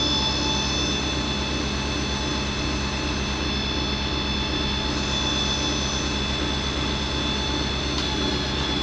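A motor-driven machine running steadily, a constant high whine over a low hum, with one short click about eight seconds in.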